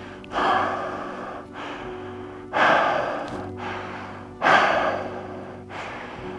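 A man breathing heavily in sharp, gasping breaths, three of them about two seconds apart, each starting suddenly and tailing off, over a low held music drone.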